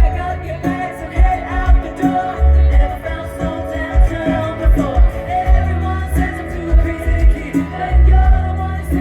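A live pop band with a woman singing lead over a steady, heavy kick-drum beat and sustained instruments.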